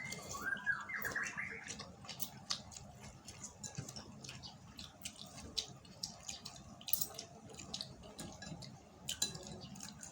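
Close-up mukbang eating sounds from a bowl of chicken noodles: scattered sharp clicks and smacks of chewing and of utensils against the bowl, with a brief high squeaky sound in the first two seconds.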